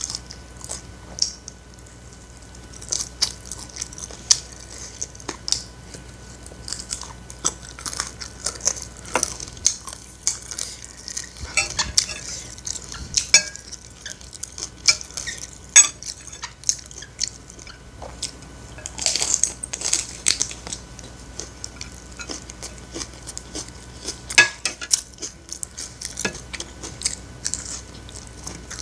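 Metal spoon clinking and scraping against a ceramic plate as fried rice is scooped up, in many short irregular strikes, with close-up chewing in between.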